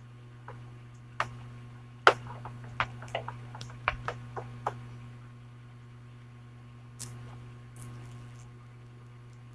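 Irregular sharp ticks over a steady low hum from a powered-up TCL flat CRT TV whose power supply is faulty. The B+ fluctuates rather than holding steady, the supply trouble that makes the set sound like a helicopter inside. The ticks come in a quick run over the first few seconds, with two more later.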